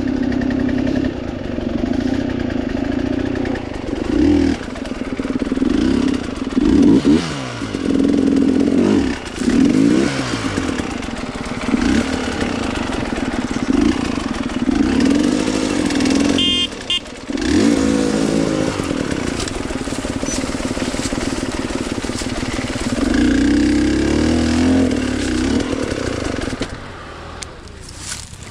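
Dirt bike engine running and revving, its pitch rising and falling over and over, with a brief break about halfway through; the engine noise drops away near the end.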